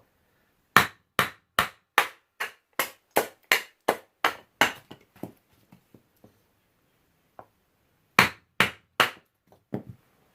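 A homemade knife made from a pipe wrench chopping into a block of wood: about a dozen sharp blows at a steady pace of roughly two and a half a second, a pause, then three more blows near the end.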